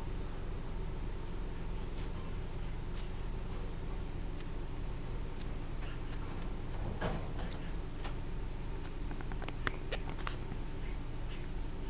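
Baby marmosets giving short, very high-pitched squeaks, about one a second, some falling slightly in pitch, over a steady low hum.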